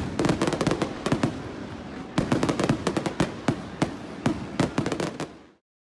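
Stadium fireworks going off in rapid succession, a dense crackle of sharp bangs and pops, with a louder flurry about two seconds in. The sound dies away abruptly near the end.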